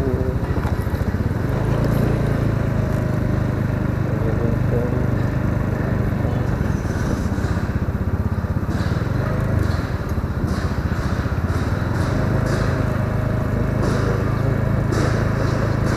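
A Honda automatic scooter's small single-cylinder engine running steadily as it rides slowly. The hum eases off about ten seconds in and picks up again a couple of seconds later.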